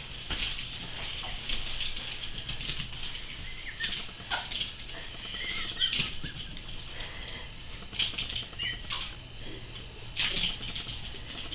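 Small Yorkshire terriers moving about on a tiled floor, their claws clicking and scrabbling, with a few short high squeaks.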